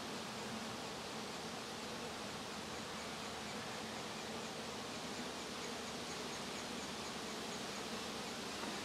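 Saskatraz honey bees in an open hive, humming steadily. It is a real low hum, not frenzied: the sign of a calm colony.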